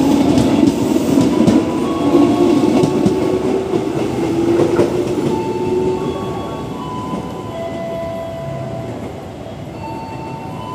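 Electric commuter train running through the station at speed: a loud rumble with wheels clattering over the rail joints and a rising motor hum. About halfway through it gives way to a quieter, slower electric train with a few steady whining tones.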